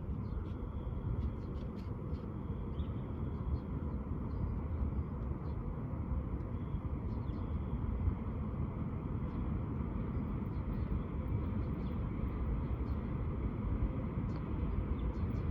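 Steady low rumble of a VL80S electric locomotive and freight train still some way off, with faint short high chirps over it.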